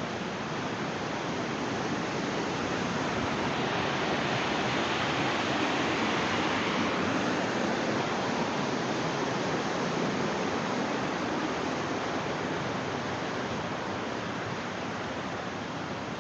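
Steady rush of heavy falling water from a large waterfall in full rainy-season flow. It grows a little louder about a quarter of the way in and eases off toward the end.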